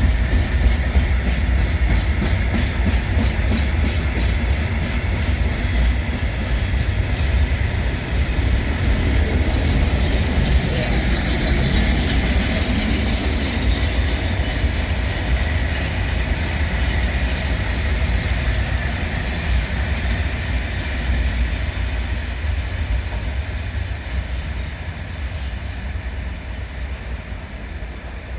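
Freight train of Eas open wagons rolling past, wheels clattering over the rail joints in a steady run of clicks over a heavy rumble. The sound fades away over the last few seconds as the train moves off.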